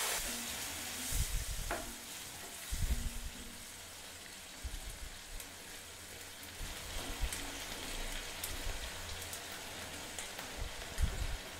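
Chopped broad beans, onion and tomato sizzling steadily in hot oil with water just added, while a wooden spatula stirs through them in a non-stick pan, with a few soft knocks of the spatula against the pan.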